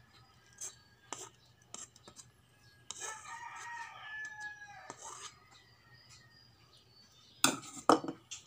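A rooster crows once for about two seconds in the middle. Around it, a rice paddle clicks and scrapes against the aluminium pot, with the loudest knocks near the end.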